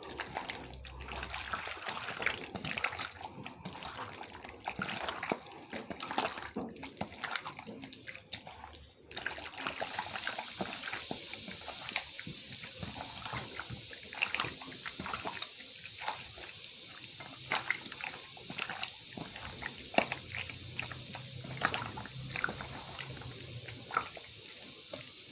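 Wet squelching and sloshing of chicken pieces being mixed by hand in a buttermilk and spice marinade, in many short irregular smacks. About nine and a half seconds in, a steady hiss starts and runs under the mixing.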